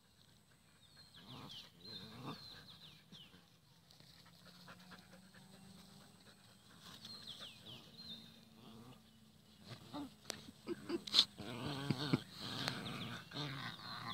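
Dogs panting and whining, busier and louder from about ten seconds in.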